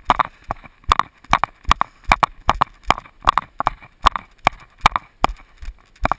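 A runner's footfalls on a dirt-and-grass trail, an even rhythm of knocks about two and a half a second, with hard, tired breathing between strides.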